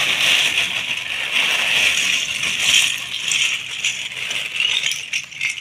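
Loose plastic LEGO bricks clattering against each other in a pile. It is a dense, continuous rattle of many small clicks that starts suddenly and goes on for about five seconds.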